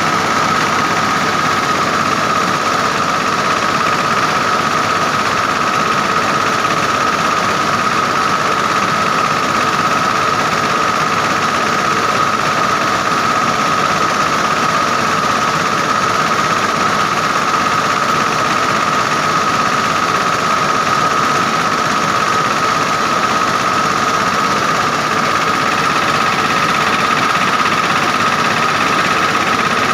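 Mobile rice mill running steadily: its engine and milling machinery make a constant drone with a steady high whine, while milled rice streams out of the chute.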